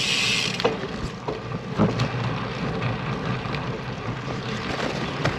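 Road bicycle rolling along a concrete path: steady low tyre and wind rumble, with a few sharp knocks as the wheels cross pavement joints and the road edge. A high hiss in the first half-second cuts off suddenly.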